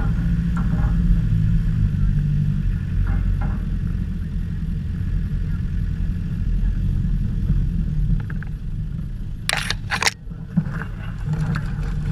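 Land Rover Discovery driving slowly along a muddy, rutted track, heard from its bonnet: a steady low engine and drivetrain rumble. Two sharp knocks come near the end.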